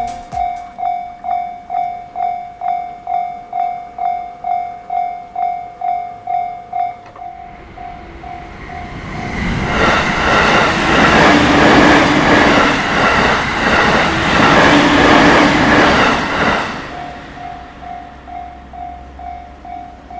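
Japanese level-crossing warning bell ringing a steady clang, a little over two strikes a second. About ten seconds in a JR Takasaki Line train passes over the crossing for roughly seven seconds, loud, with its wheels clacking over the rail joints, drowning the bell. The bell is heard again, fainter, once the train has gone.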